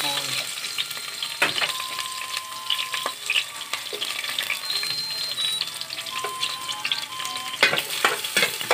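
Chopped garlic and red onion sizzling and crackling in hot oil in a stainless steel pot as they are sautéed. A few sharp knocks of the plastic spatula against the pot come through, several close together near the end.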